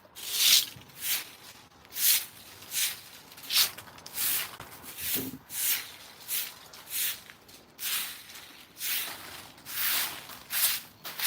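Footsteps walking at a steady pace on a dry outdoor surface, each step a short scuffing crunch, about one and a half a second.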